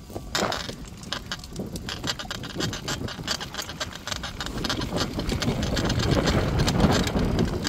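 Bicycle rolling fast over a rough dirt track, with dense irregular crunching and rattling over a low wind rumble on the microphone, growing louder toward the end.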